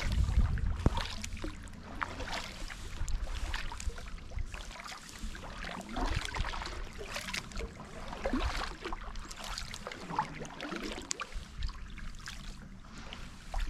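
Kayak paddle strokes in calm river water: the blades dip and pull, with irregular small splashes and drips running off the blades. Wind rumbles on the microphone during the first second or so.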